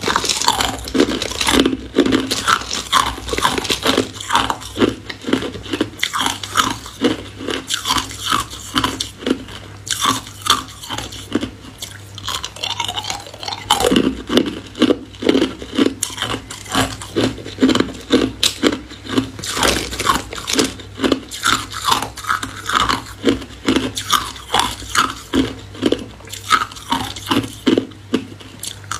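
Hard ice being bitten and chewed close to the microphone: a continuous run of sharp crunches and cracks, about two or three a second.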